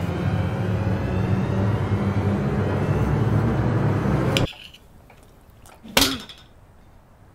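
A loud, low rumbling drone with rising tones above it cuts off abruptly about four and a half seconds in. About six seconds in comes a single sharp slap of a hand against a man's face.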